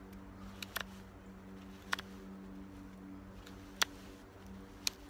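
JaktKit KNV2 fixed-blade knife cutting a notch into a maple branch, with a sharp crack about once a second as the blade bites into the hardwood and chips break away; the loudest comes a little before the end.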